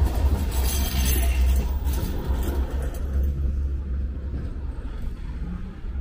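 City street traffic: a vehicle passes close with a deep rumble and tyre hiss that fades away over the first few seconds.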